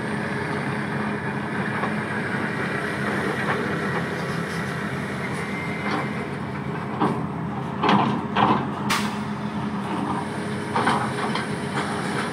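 Diesel engine of a 450D LC tracked excavator running steadily while the machine digs with its bucket. A few short sharp clanks and scrapes come through about two thirds of the way in.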